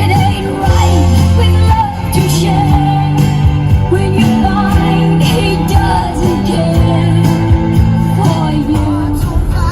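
Background music: a song with a singing voice over held bass notes.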